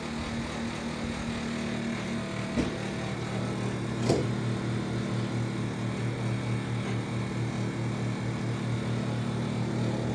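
Elgin Eco Inverter 9000 BTU split air conditioner running with a steady low hum whose tone shifts a couple of seconds in, and a sharp click about four seconds in. This is the unexplained noise that two technicians have not been able to trace.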